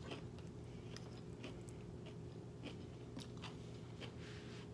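Soft chewing and crisp crunching of bossam lettuce wraps with boiled pork belly, in scattered short bites, over a faint steady hum.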